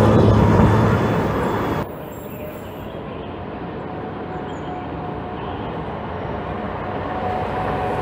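Dennis Condor double-deck bus engines. One bus pulls away loudly, and the sound cuts off suddenly under two seconds in. A second Condor then comes closer, its engine note with a faint steady whine growing louder toward the end.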